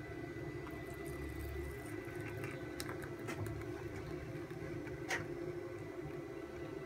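Low, steady room hum with a few faint, short clicks, the sharpest about five seconds in; the thick syrup pouring into the bowl makes no clear sound of its own.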